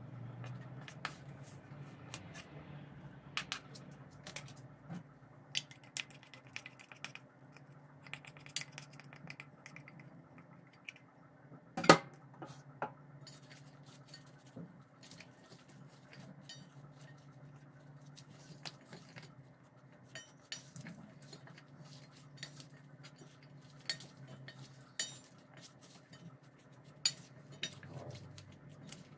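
A wooden spoon and hand tossing acorn jelly and vegetables in a stainless steel mixing bowl: scattered clicks and scrapes of the utensil against the metal bowl, with one sharp clank about twelve seconds in. A low steady hum runs underneath.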